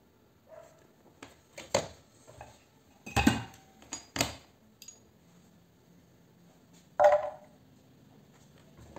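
Small brass scrap pieces clinking and knocking as they are handled and set down on a digital scale's platform: a few separate clinks and knocks, the loudest about three seconds in and a ringing clink about seven seconds in.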